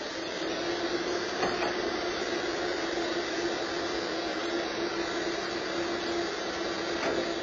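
A large truck running close by out of view: a steady engine hum under a rushing noise that swells up and then fades away near the end.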